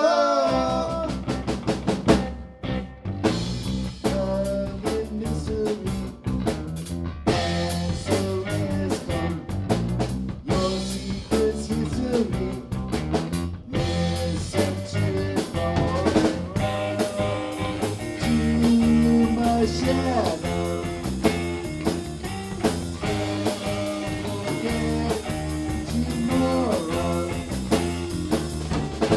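A band playing a song on drum kit, bass guitar and guitar, with a steady drum beat.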